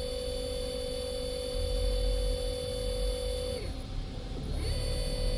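AC servo motor spinning at 3000 RPM on jog, giving a steady whine over a low rumble. About four seconds in, the pitch slides down and comes back up as the motor slows and spins up again.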